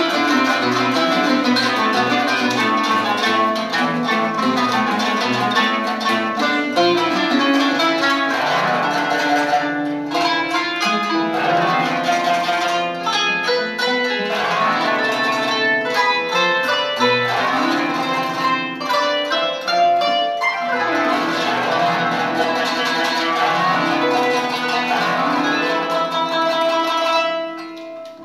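Kanun and oud playing a duet, a busy run of quickly plucked notes from both, which falls away near the end.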